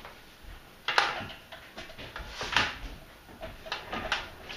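Several sharp, irregular knocks and clunks from an elliptical trainer as a person steps up onto its foot pedals. The loudest knocks come about a second in and again near the middle.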